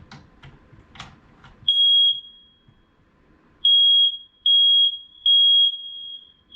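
Household smoke alarm sounding its test signal after a few clicks and knocks: one shrill, steady beep, a pause, then three beeps in a row, the temporal-three pattern of a smoke alarm.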